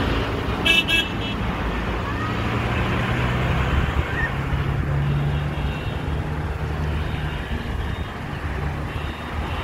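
Steady road traffic noise from cars on a busy road, with a vehicle's low engine hum swelling in the middle and a short high-pitched sound about a second in.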